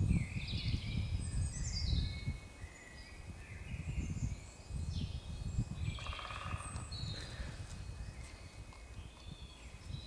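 Woodland songbirds singing and chirping, with a short, fast drum roll about six seconds in from a woodpecker drumming on hollow-sounding wood.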